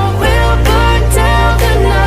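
Background music: a song with a sustained bass line that changes note about a quarter second in, and a melodic lead above it.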